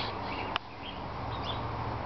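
Faint, short bird chirps a few times over a steady low hum, with a single sharp click about half a second in.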